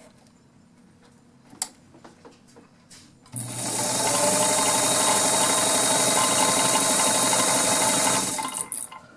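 Kenmore Model 33 all-metal sewing machine with its 1.2-amp motor running at a steady speed for about five seconds as it sews a test seam, then slowing and stopping; a few light clicks come before it starts. It is stitching properly after a bobbin case swap.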